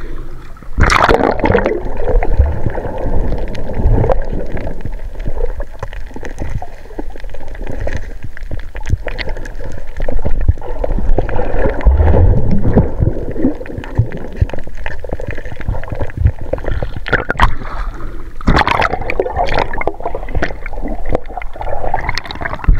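Water gurgling and sloshing close to the microphone, with sharper splashes about a second in and again near the end.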